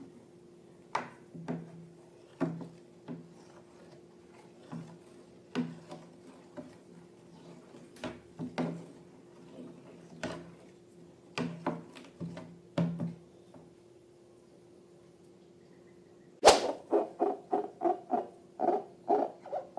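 Sticky slime being squeezed and stretched: irregular wet clicks and pops over a faint steady hum. About three-quarters through, a sharp crack, then a quick run of short pitched pulses, about three a second.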